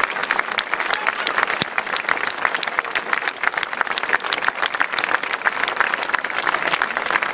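Large crowd applauding steadily, a dense patter of many people clapping.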